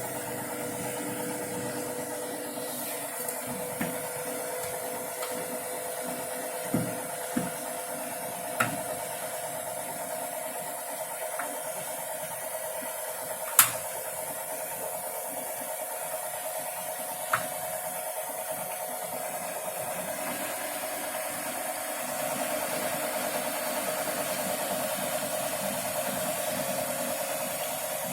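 Bosch Serie 6 VarioPerfect washing machine running, a steady quiet motor hum with a faint hiss. A few short sharp knocks come through it, the loudest about halfway, and the hum gets a little louder about 22 seconds in.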